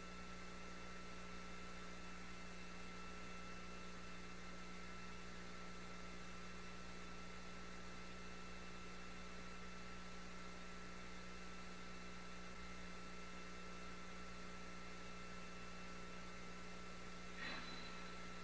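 Steady electronic hum and hiss with several constant tones, the audio of an International Space Station transmission feed. A brief faint blip sounds near the end.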